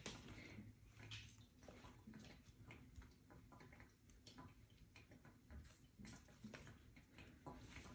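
Near silence with faint, scattered light ticks and rustles: a cat pawing at and biting a feather wand toy on a wooden floor.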